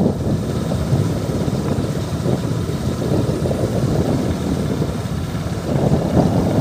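Steady low rumble of wind buffeting the microphone, with a vehicle running underneath.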